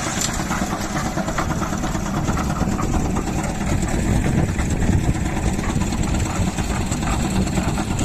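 Engine-driven concrete mixer running steadily, its rotating drum tipped to discharge concrete down a chute.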